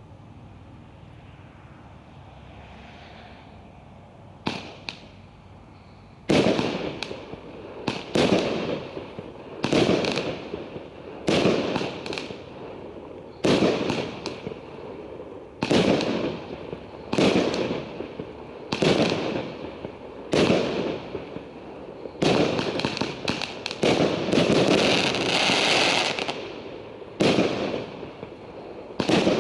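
A 41-shot fireworks cake firing straight up. After a few seconds of low background and a small pop, shots go off about every second and a half, each a sharp bang with a fading burst after it. About 22 to 26 seconds in the shots come in a dense, nearly continuous run.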